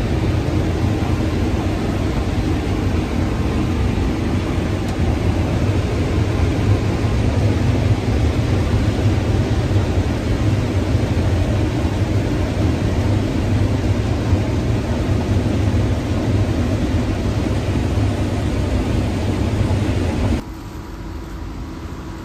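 Semi truck's diesel engine running steadily with a deep rumble and noisy wash. About twenty seconds in it cuts off suddenly to a much quieter hum.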